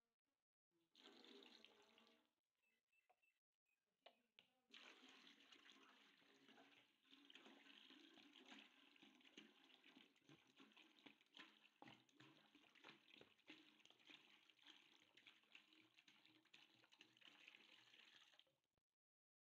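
Faint sound of water pouring from a plastic bottle into a metal bucket: a short pour about a second in, then a steady pour from about five seconds in that stops suddenly near the end.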